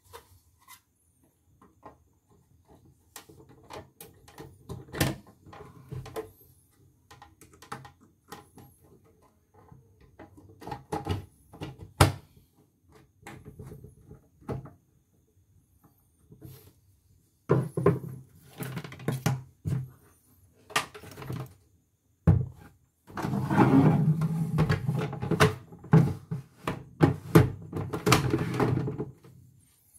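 Scattered knocks and clicks of plastic parts as a portable embroidery machine is handled and fitted back together, with a denser stretch of knocking and rattling in the last third.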